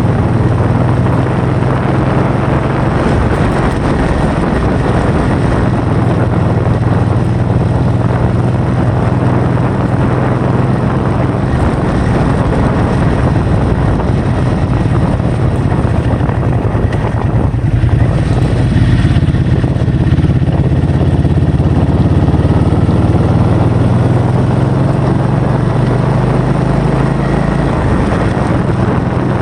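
Loud, steady wind rush on the microphone with a steady engine hum beneath it, from a moving vehicle.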